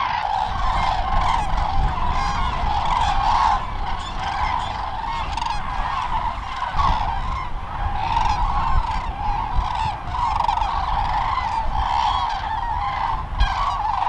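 A large flock of common cranes (Grus grus) calling together: many overlapping trumpeting calls blend into one continuous chorus as the birds leave the fields in flight.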